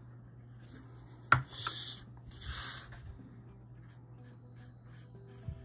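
A damp paintbrush scrubbing on Arches cold-press watercolour paper to lift paint, heard as two short brushing strokes just after a sharp tap about a second in.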